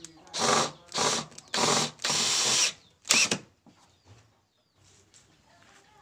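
Cordless drill boring into the mitered corner of a wooden frame, run in five short bursts, the fourth the longest, over the first three and a half seconds.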